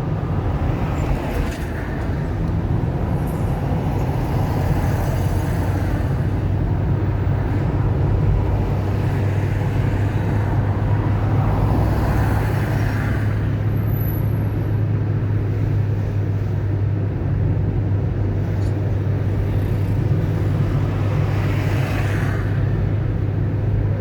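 A car driving on a wet road: a steady low engine and road drone under a hiss of tyres, swelling now and then.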